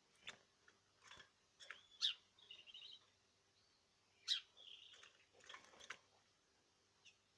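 Caged birds giving short, sharp chirps, with a brief warbling run after two of the louder calls, spaced out over a few seconds.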